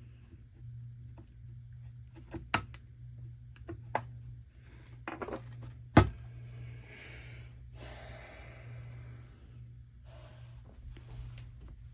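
Sharp clicks and knocks of plastic trim parts and tools being handled, the loudest about six seconds in, with a few brief rustles, over a steady low hum.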